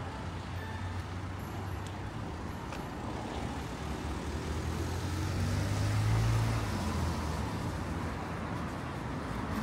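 Road traffic: a steady rumble of passing motor vehicles, with one vehicle passing close and getting louder about six seconds in before fading.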